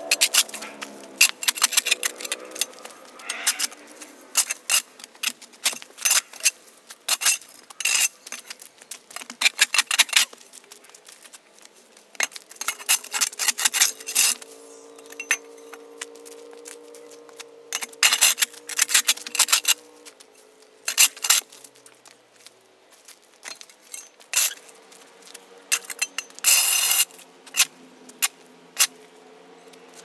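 Metal shovel blade scraping across a concrete court, cutting under a thick mat of overgrown grass and dirt: repeated clusters of rasping scrapes with sharp metallic clinks where the blade hits the concrete.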